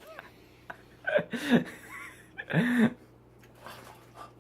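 Wordless human vocal sounds, two louder short cries or laughs about a second and two and a half seconds in with fainter ones around them, as people react to a whole hot chile pepper being eaten.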